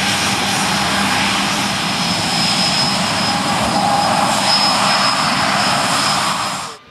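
Boeing 737-800's CFM56 jet engines running at taxi power as the airliner rolls slowly past close by: a steady jet rush with a high whine over it, growing a little louder as the engine passes. The sound cuts off abruptly near the end.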